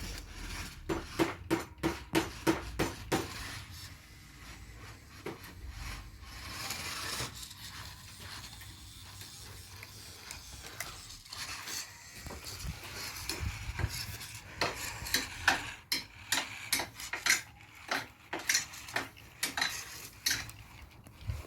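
RC rock crawler clattering and scraping over hard obstacles: many sharp knocks and clicks in quick clusters, with a quieter scraping stretch in the middle.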